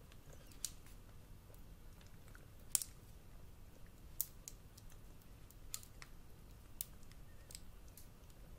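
Scattered small clicks and taps from handling a plastic flip phone while its protective plastic film is peeled off, about eight sharp ones a second or so apart, the loudest near the middle.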